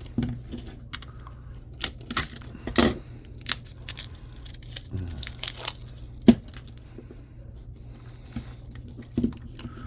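Scattered clinks, rattles and knocks of loose scrap copper wire and motor parts being handled, with a sharper knock about six seconds in. A steady low hum runs underneath.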